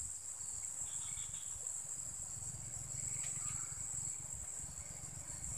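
Steady high-pitched insect chorus, a continuous buzz from crickets or similar insects, over a low rumble.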